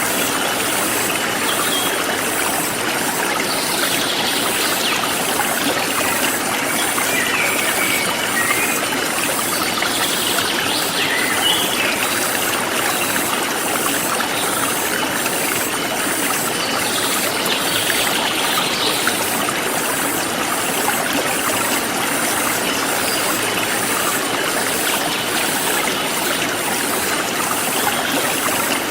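A forest stream flowing steadily over rocks, with an insect chirring in a fast, even pulse high above the water and a few short bird chirps now and then.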